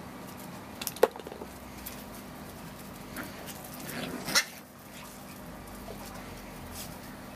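Puppies at play, giving a short sharp yip about a second in and a louder yelp just past four seconds.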